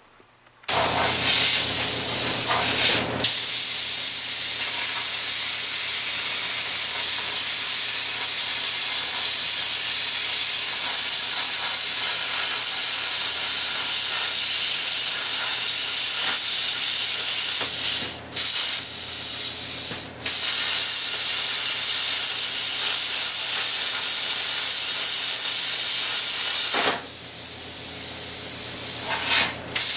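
Handheld plasma cutter cutting through steel plate: a loud, steady hiss with a low hum underneath. It starts just after the opening and breaks off briefly a few times as the torch stops and restarts. Near the end, a softer hiss runs on for a couple of seconds before the full cutting hiss returns.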